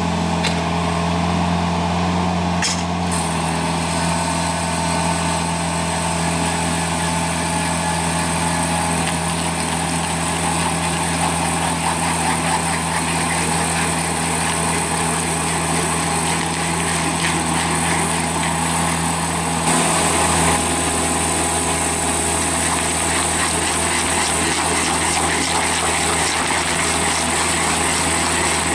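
Stump grinder's engine running steadily under load, with a constant high hiss over the engine note and a short louder moment about twenty seconds in.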